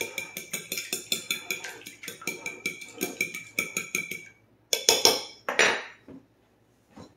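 A fork beating eggs in a glass pie plate: rapid, even clinking of the fork against the glass, about five strokes a second, that stops about four seconds in. Two short, louder noisy sounds follow.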